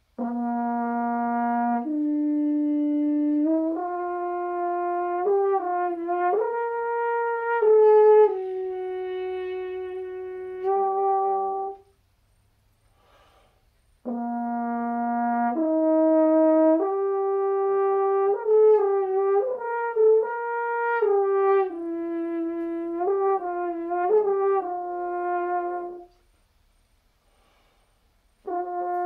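Natural horn crooked in E-flat, a copy of an Antoine Halari orchestra horn of about 1810, playing an unaccompanied solo prelude. Two phrases each open on a low held note and climb through held notes and quicker runs, with a pause of about two seconds between them and a third phrase starting near the end.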